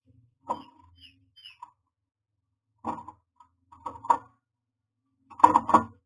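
Common myna's feet and bill knocking and scraping on the wooden nest box, heard from inside the box: a few short clusters of taps, the loudest near the end.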